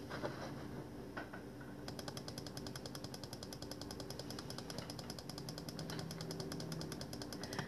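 Faint, rapid, evenly spaced clicking of about eight clicks a second, starting about two seconds in, over a faint low hum.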